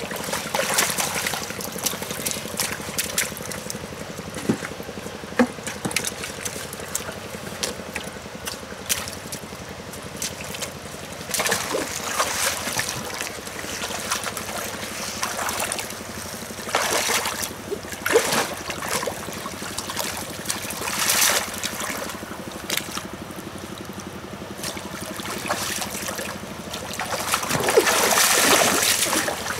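Splashing and sloshing in shallow muddy water as a wire basket scoop is swept and dragged through it, in several bursts with the biggest near the end. Underneath runs a steady low hum from the small engine-driven water pump and water trickling.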